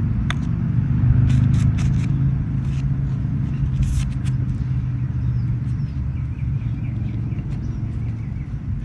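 Sharp clicks and taps of plastic and tools as the cover of a small battery mini chainsaw is taken off, most of them in the first four seconds. Under them runs a steady low rumble like a motor vehicle running nearby.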